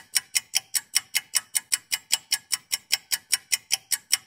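Clock-ticking sound effect: fast, even ticks, about six a second, with nothing else behind them.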